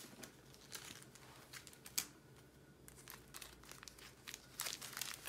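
Thin plastic packets crinkling and crackling as they are handled, with scattered sharp clicks, a denser cluster near the end.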